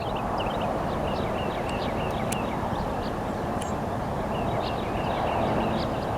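Outdoor ambience: small birds chirping over and over in short quick notes, above a steady background rumble.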